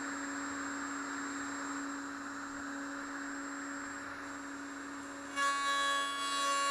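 Triton router spinning its straight bit in a router table with a steady whine. About five seconds in it turns suddenly louder and harsher, with many higher tones, as the bit cuts a box-joint slot into the board.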